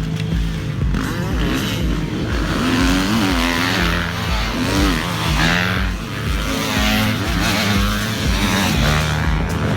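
Motocross bikes racing, engines revving up and down as they accelerate and back off through the track.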